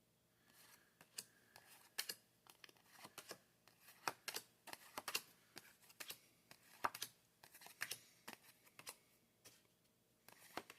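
Trading cards being handled and flipped one by one: a faint, irregular string of light clicks, snaps and rustles of card stock.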